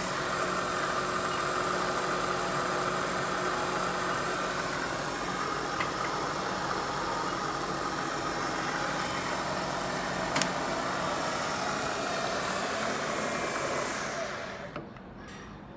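Southwestern Trak DPM CNC milling machine's spindle motor and head running with a steady hum and whine, with a couple of light ticks. Near the end the machine is switched off and winds down to quiet, followed by a click.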